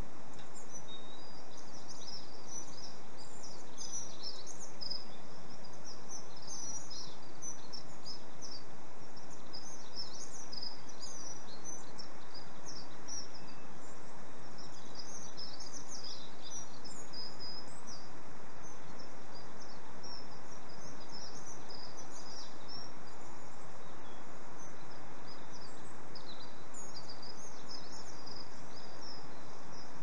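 Small songbirds chirping: a busy stream of short, high calls over a steady outdoor background hiss.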